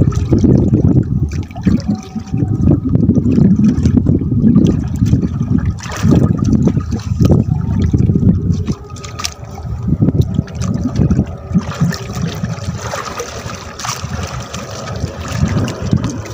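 Sea water sloshing and lapping against the side of a small wooden boat, rising and falling unevenly, with a few short knocks.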